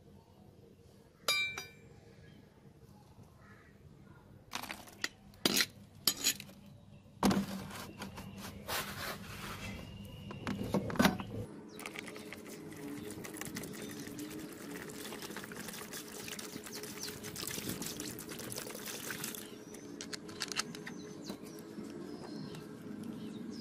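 A single ringing metal clink and several knocks as the rusty knife is handled, then a steady pour of water into a plastic tub over the blade, filling it for a dilute sulphuric acid rust-removal soak.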